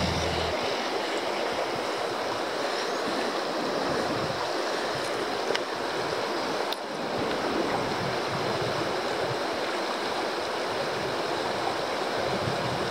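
Small mountain stream rushing steadily over rocks.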